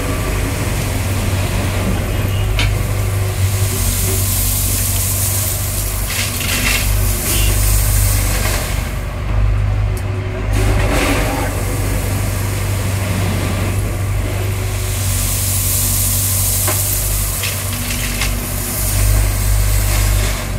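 Heavy diesel engine of an excavator running steadily while loading stones, with a few sharp knocks and two long spells of rushing noise.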